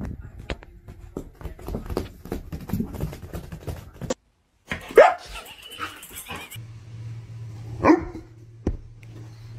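A dog barking twice, two loud sharp barks that drop in pitch, about five and eight seconds in. Before them, a run of quick scuffling and clicking.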